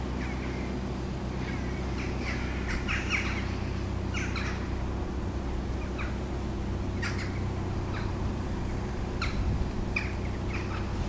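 Narrowboat's diesel engine running steadily as a low, even hum while the boat cruises, with birds calling in short chirps a dozen or so times over it.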